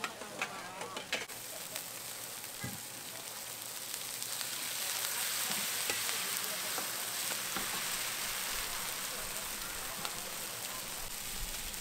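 Food frying and sizzling on a hot night-market stall cooker, a steady hiss that grows louder about four seconds in, with a few light clicks of a utensil.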